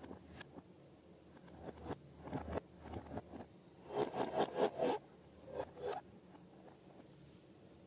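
Hand-handling sounds of slime-making: short scraping and crackling rasps, with a quick run of them about four seconds in and two more shortly after.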